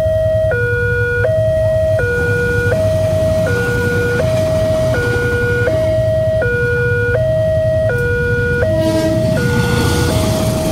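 Electronic level-crossing warning alarm sounding two alternating tones, switching between them about every three-quarters of a second. It is the signal that a train is approaching and the barriers are closed.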